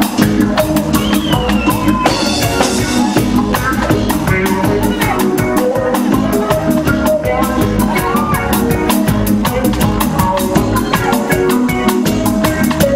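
Live reggae band playing: a drum kit keeps a steady beat with dense cymbal and snare strokes under electric guitar, bass and a lead voice singing.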